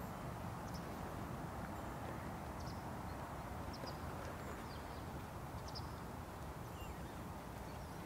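Steady low background rumble with faint, short high chirps scattered through it a few times.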